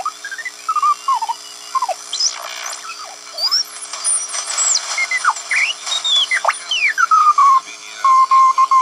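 Audio of a Splinter 40-metre direct-conversion receiver being tuned across the band: the whistling beat notes of signals glide up and down in pitch as the tuning knob turns. Near the end, one Morse code signal settles in as a steady mid-pitched tone, keyed on and off.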